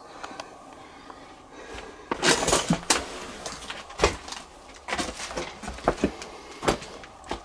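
Footsteps crunching and rustling over debris and loose newspapers on a rotting floor, irregular steps starting about two seconds in.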